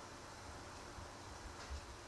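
Faint steady hiss of room tone, with a couple of soft low thumps near the end.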